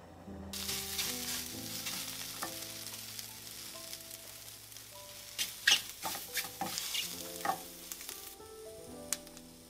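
Sliced chikuwa dry-frying in a nonstick frying pan, sizzling steadily as they brown and being stirred, with a few sharp clacks against the pan in the second half. The sizzle stops about eight seconds in.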